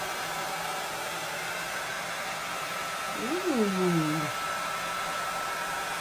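Electric heat gun blowing steadily, a constant rush of air with a faint steady whine. About three seconds in, a short call rises and then falls in pitch, lasting about a second.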